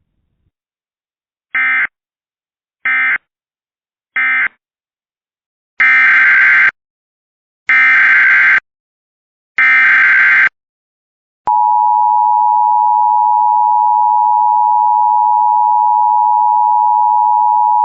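Emergency Alert System signalling. First come three short bursts of screechy SAME data about a second and a half apart, the end-of-message code that closes an alert. Then come three longer, one-second bursts of the same kind, the header of the next alert. About eleven and a half seconds in, the steady two-tone EAS attention signal starts and holds.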